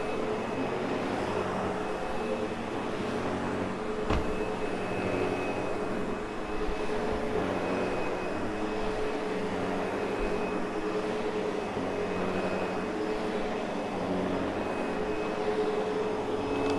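Sebo X8 upright vacuum cleaner running steadily, a constant motor hum with a higher whine above it. A single sharp knock about four seconds in.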